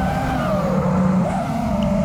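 FPV racing quadcopter's brushless motors and propellers whining, the pitch rising and falling smoothly as the throttle changes.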